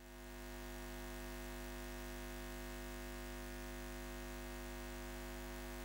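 Steady droning hum made of many held tones, fading in over the first half second and then unchanging.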